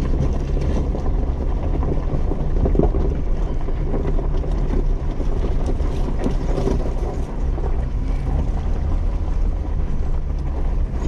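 Jeep driving slowly over a rough dirt and gravel trail: a steady low engine and drivetrain hum, with tyres crunching and scattered small knocks and rattles.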